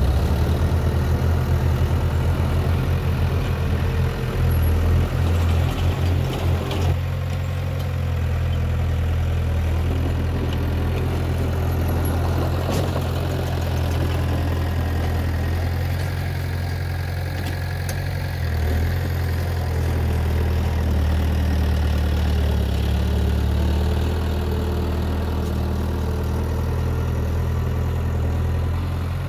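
Diesel engine of heavy earthmoving machinery running at low speed, a deep steady drone. It throbs unevenly for the first several seconds, then settles into a steadier run.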